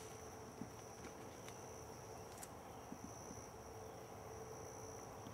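Faint, steady, high-pitched chorus of insects, with a light click about two and a half seconds in.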